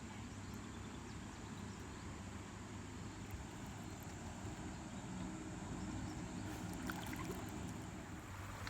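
Steady rush of river water around a kayak drifting with the current, with a few faint clicks late on.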